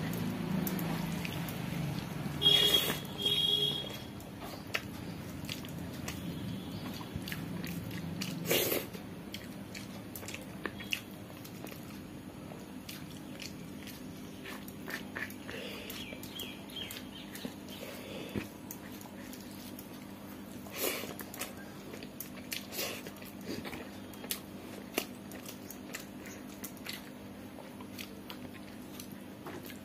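Close-up mouth sounds of a person chewing and eating rice by hand, with many small wet clicks and smacks. A louder sound comes about two and a half seconds in and a sharp knock near nine seconds, over a faint steady hum.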